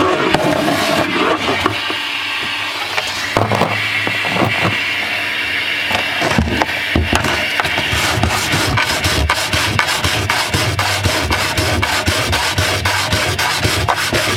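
Sandpaper rubbed by hand over a wooden hull surface in quick back-and-forth scrubbing strokes, a scratchy rasp that turns into a fast, steady run of strokes from about six seconds in.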